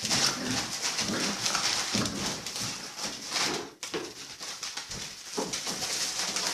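Labrador puppies at five and a half weeks playing, with small yips and growls, amid dense rustling and crinkling from a crinkly toy and scuffling in the pen. The crinkle drops out briefly a little under four seconds in.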